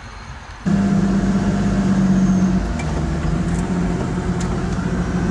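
Pagani Huayra's twin-turbo AMG V12 running with its loud exhaust, heard from inside the cabin. It cuts in abruptly under a second in, runs at a higher, steady pitch for about two seconds, then settles to a lower idle.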